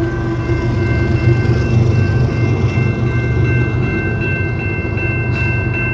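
Canadian Pacific train rolling past with a loud, steady low rumble; the horn's last note fades out right at the start, and from about a second in a high, steady ringing tone sounds over the rumble.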